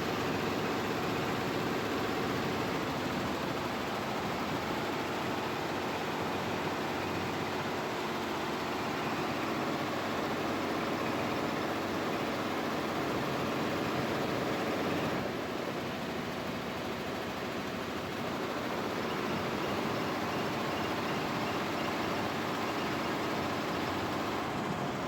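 Computerized embroidery machine stitching, a steady rapid mechanical clatter of the needle drive that eases slightly about fifteen seconds in.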